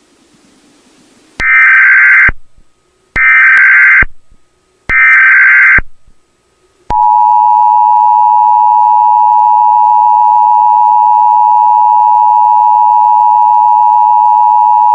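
Emergency Alert System signal: three loud one-second bursts of SAME digital header data a little over a second apart. About seven seconds in, the steady two-tone EAS attention signal starts and holds for about eight seconds.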